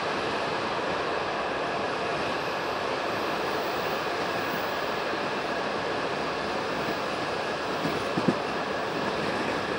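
Passenger train coach running along the track: a steady rumble of wheels on rails. A couple of sharp knocks come about eight seconds in, as the wheels pass over a rail joint.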